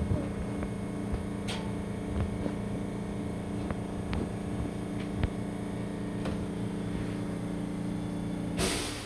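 Steady hum of a stopped Osaka Metro New Tram car with its doors open, with scattered light clicks. Near the end comes a short, loud hiss, and then the hum cuts off.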